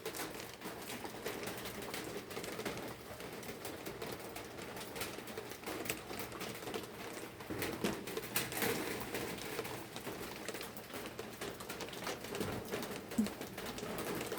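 Light rain falling, drops pattering and ticking irregularly on nearby surfaces.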